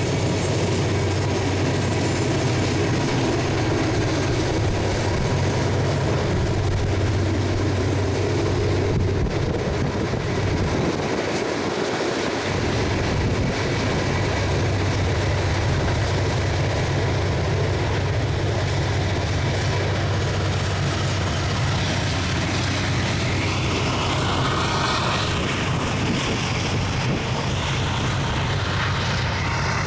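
Norfolk Southern freight train of hopper and tank cars rolling past, a steady low rumble with the low end dipping briefly about eleven seconds in.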